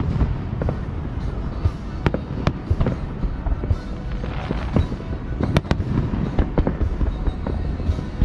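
Fireworks display: shells bursting in sharp, irregular bangs, with a quick cluster just past halfway, over a continuous low rumble of more distant bursts.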